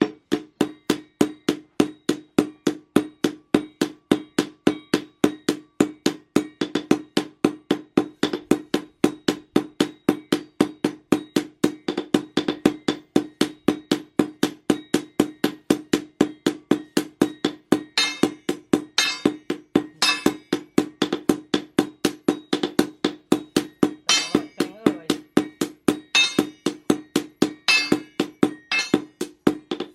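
Hammer blows on steel and anvil, about three a second in a steady rhythm, each strike ringing, forging a machete blade from chainsaw-bar steel. In the second half a few strikes sound sharper and brighter than the rest.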